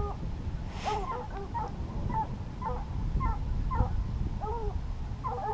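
A pack of scent hounds baying, short arched bays several a second overlapping each other, over a low wind rumble.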